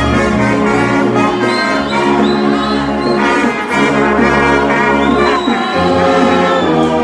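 Brass band playing, led by several trumpets sounding held notes together in harmony, with a few slurred rises and falls in pitch and low bass notes underneath.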